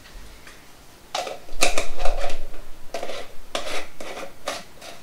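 Plastic screw lid being twisted on a glass mason jar: six or seven short, scratchy turns, starting about a second in.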